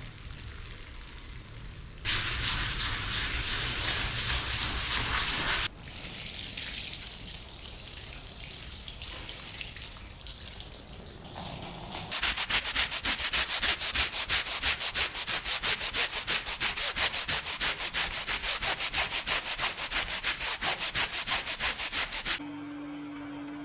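Stiff brush scrubbing a mud-caked rug by hand, in several short clips that cut abruptly from one to the next. In the second half the brushing turns to fast, even back-and-forth strokes, about four a second.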